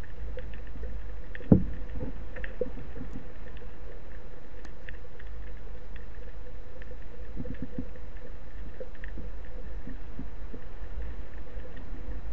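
Underwater ambience picked up by a speargun-mounted camera on a breath-hold dive: a steady low rumble with a faint hum, scattered small clicks and crackles, and one sharper knock about a second and a half in.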